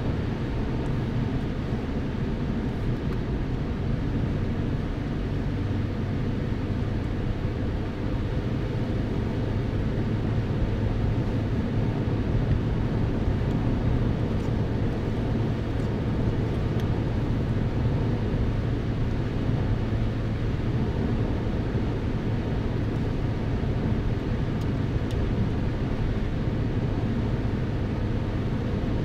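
Car driving steadily along a country road, heard from inside the cabin: an even engine hum with tyre and road noise.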